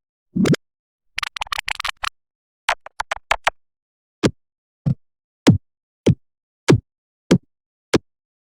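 Pitched-down, effect-processed cartoon sound effects. First comes a short falling blip, then two quick bursts of rapid clicking and clattering. A run of seven short blips follows, about 0.6 s apart, each falling in pitch.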